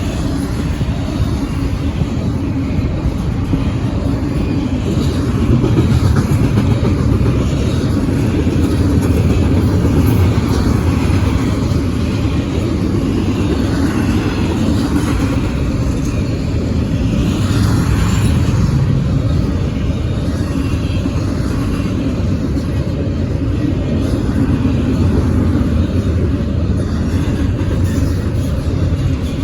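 Norfolk Southern freight train rolling past at speed: a steady, heavy rumble of steel wheels on rail that holds throughout, slightly louder a few seconds in.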